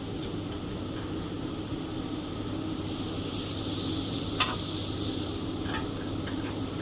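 A steady low machine hum, with a loud high hiss that starts about three seconds in and lasts about two and a half seconds, and a few light clicks.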